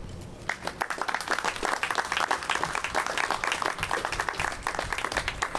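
A small crowd applauding: many hands clapping irregularly, starting about half a second in and carrying on after a speech ends.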